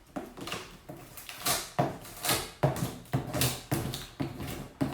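Packing tape being ripped off a cardboard box in a series of short tears.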